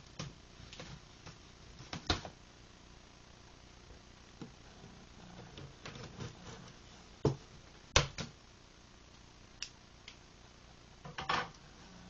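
Cardboard shipping box being opened by hand: scattered sharp knocks and scrapes as the packing tape is cut and the flaps are worked open. The loudest knock comes about eight seconds in, and a short scraping rustle follows near the end.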